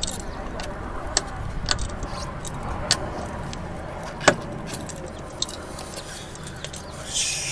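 Small fastener clips clinking together in a hand and clicking as they are pressed into a car's fender, a scattering of sharp clicks with the loudest about four seconds in, over a steady low rumble.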